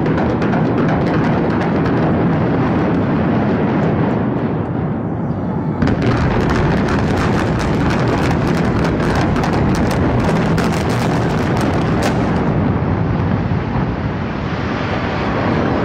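Building implosion: a continuous heavy rumble of the tower coming down, with a dense run of sharp cracks and bangs from about six to twelve seconds in.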